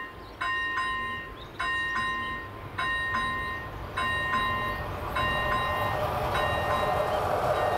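Level-crossing warning bell ringing in pairs of strokes about every second, with the crossing lights flashing. From about five seconds in, the rumble of an approaching freight train grows louder under it.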